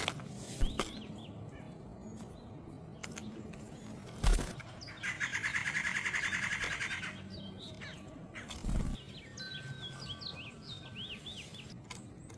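Small songbirds calling at a bird feeder: a rapid trill lasting about two seconds midway, then a string of short high chirps near the end. A few sharp knocks come in between, the loudest just before the trill.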